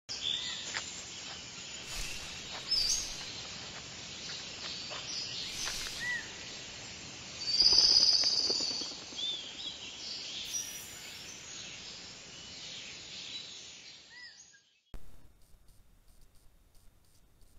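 Intro sound effects of forest ambience with short bird chirps and a few swishes, swelling loudest about halfway through. It cuts off sharply near the end, leaving only faint rapid ticking.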